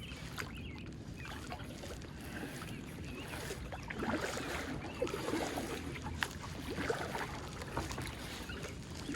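Kayak paddling: the paddle dips and splashes, and water drips and laps against the hull. The splashing gets busier from about four seconds in.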